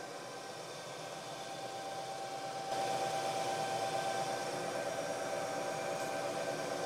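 Bridgeport-type knee mill running, its spindle turning for a finishing boring pass with the quill on power feed: a steady mechanical hum with a steady whine, getting louder about three seconds in.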